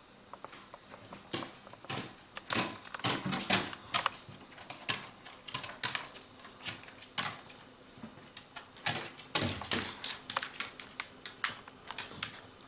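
A Shih Tzu's paws and claws clicking and knocking on wooden stair treads as it comes down the stairs one step at a time: irregular taps, with louder knocks in clusters.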